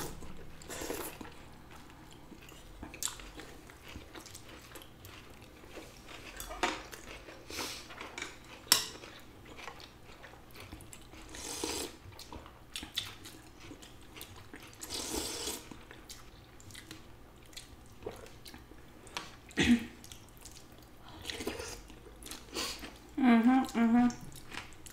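Eating sounds of noodle soup: noodles and broth slurped, with chewing and occasional sharp clicks of spoon and fork against the bowls. Two longer slurps come around the middle, and a short voiced hum near the end.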